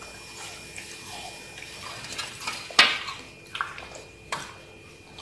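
Siberian husky eating juicy watermelon chunks: a run of wet smacks and slurps from chewing and licking, the loudest a little under three seconds in.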